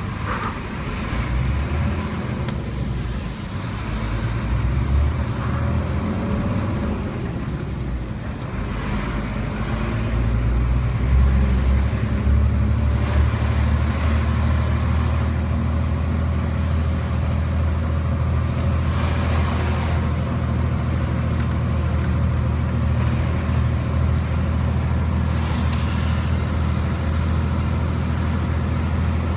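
IVECO Stralis 500's Cursor 13 straight-six diesel working hard, pulling a heavy load up a steep grade, with the turbo whistling and rising and falling in pitch. The engine note dips briefly twice in the first nine seconds, then holds steady and loud under full load.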